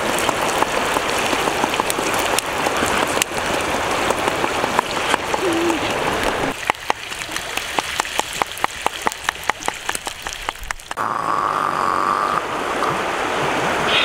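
Giant river prawns sizzling in a pan over an open wood fire, a steady frying hiss full of sharp crackles and pops. About seven seconds in the hiss thins to a quick run of separate pops, and it fills in again a few seconds later.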